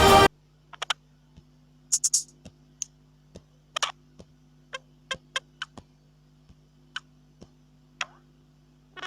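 Music cuts off just after the start, then a run of short, irregularly spaced clicks and ticks, some sharp and some slightly pitched, over a faint steady hum.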